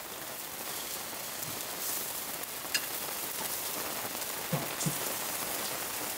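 Steady hiss of burger meat frying on a hot steel plancha, mixed with falling rain, with a few light clicks.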